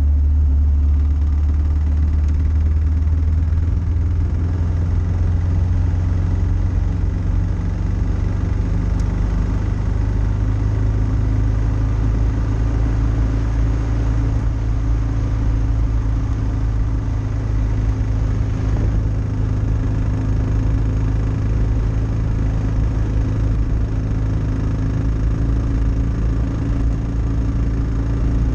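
Kawasaki KLR650's single-cylinder four-stroke engine running steadily at cruising speed, picked up close by a camera mounted on the motorcycle, a strong low drone throughout.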